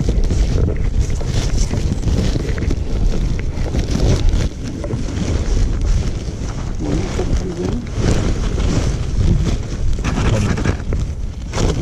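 Wind buffeting the microphone in a low, uneven rumble, with the crinkling and rustling of a woven plastic sack being handled close by.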